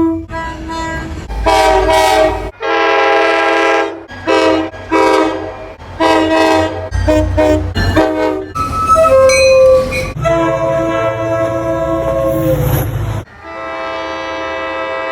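MBTA train horns sounding a series of short and long blasts, each a chord of several tones, with clips of different horns spliced one after another. A low rumble runs beneath the blasts.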